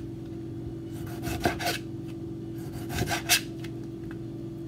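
Chef's knife slicing through a tomato, the blade rasping through the skin and knocking on the cutting board in two short runs of strokes about a second and a half apart, over a steady hum.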